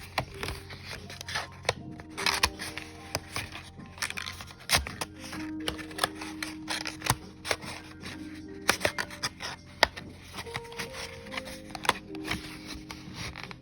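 Soft background music with held tones, over frequent small clicks and rustles of stationery items and packaging being handled.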